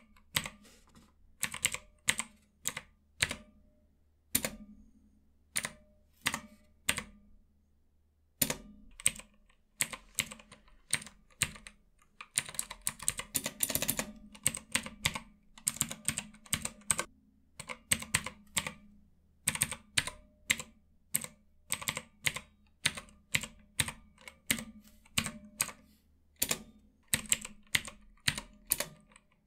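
Keys on a mechanical numpad with Outemu Blue clicky switches being pressed one at a time, each press a sharp click, with a quicker run of presses about halfway through and a short pause before it.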